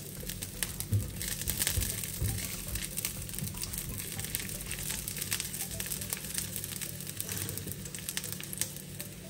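Chopped garlic sizzling in hot olive oil in an enamelled cast-iron pan, a steady fry with many small crackles.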